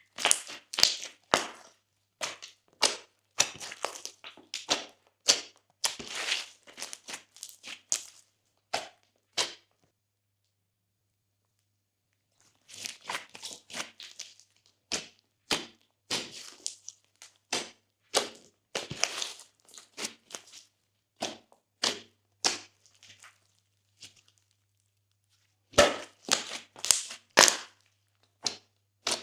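Glossy slime being squished and mixed, giving runs of sharp wet clicks, crackles and bubble pops. The clicking stops for a few seconds about ten seconds in and again shortly before the end.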